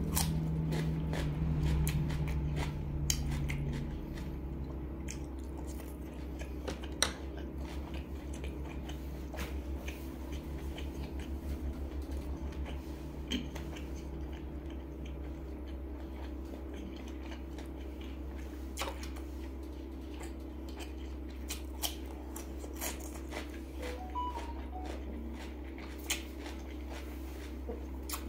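Close-mic chewing: crisp bites and crunching of raw cucumber, with wet mouth clicks scattered throughout. A low steady hum lies underneath, stronger in the first few seconds.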